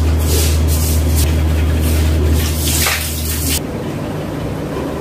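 Toothbrush scrubbing teeth in quick repeated strokes over a steady low hum. About three and a half seconds in, the sound cuts to a quieter, even background noise.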